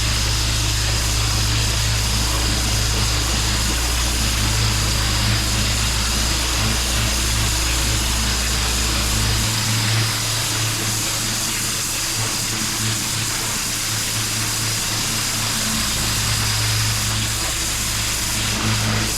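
Pressure washer running: a steady engine hum under the continuous hiss of the high-pressure water spray. The deepest part of the hum drops away for several seconds in the middle.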